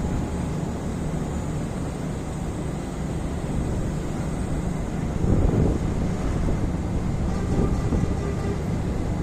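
Fishing boat's engine running steadily with a low rumble, mixed with wind and water noise. A louder rush of noise comes about five seconds in.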